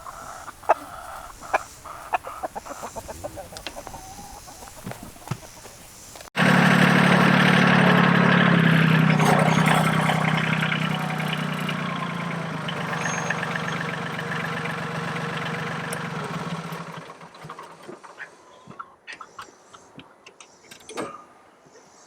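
Chickens clucking amid small knocks, then about six seconds in an engine is suddenly heard running loud and steady. It eases off and dies away a few seconds before the end.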